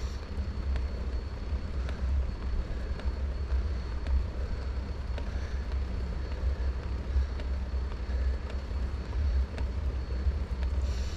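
Steady low wind rumble and road noise on a GoPro riding along on a bicycle climbing a mountain road, its wind reduction off, with a few faint ticks.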